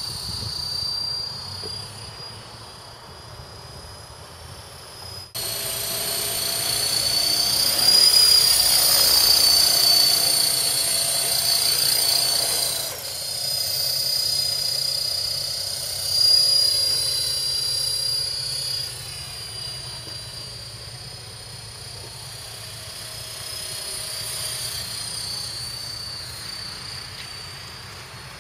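KDS 450 electric RC helicopter in flight: a high-pitched whine from its motor and rotor gearing over the whirr of the blades, wandering up and down in pitch as it manoeuvres. It jumps suddenly louder about five seconds in and is loudest in the middle, then settles quieter as it flies off.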